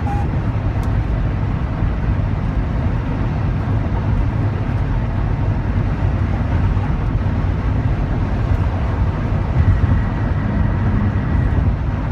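Steady low rumble of a Chrysler Town & Country minivan running, with a faint high whine for a few seconds near the end. It is the unexplained noise the owner is asking about.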